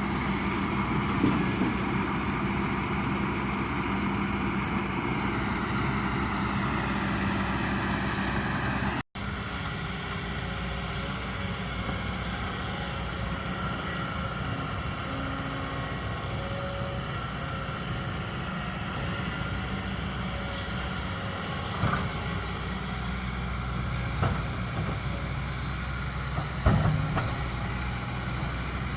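Kobelco excavator's diesel engine running steadily while it digs, with a few sharp knocks in the second half. The sound drops out for an instant about nine seconds in.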